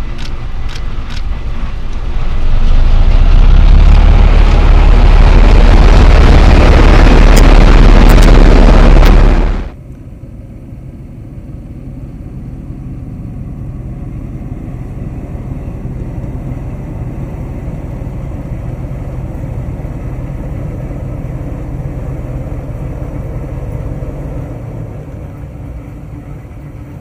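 NS 600-class diesel shunting locomotive running as it hauls a short train past, a steady low engine rumble that swells a little and then fades near the end. For the first ten seconds a much louder rushing noise, strongest in the low end, covers everything and then cuts off suddenly.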